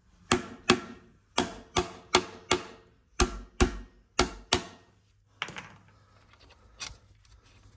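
Metal being struck sharply on a diesel engine's connecting rod cap to knock the tight-fitting cap loose from the rod. About ten ringing metallic blows come mostly in quick pairs, followed by two lighter taps near the end.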